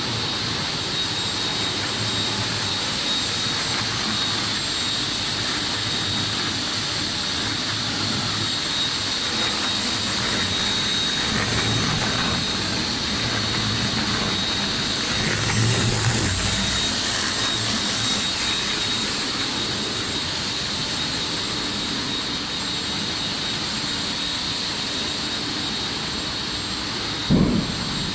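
Bubble film making machine running: a steady mechanical hum and hiss with a constant high whine, and one brief thump near the end.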